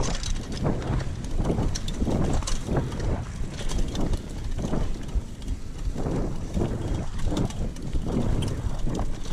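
Mountain bike being ridden along a trail: wind rumbling on the action camera's microphone, with irregular rattles and knocks as the bike goes over bumps.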